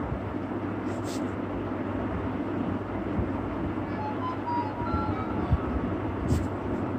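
Steady rumbling background noise with a low hum. In the second half come a few faint short squeaks of a felt-tip marker writing on paper.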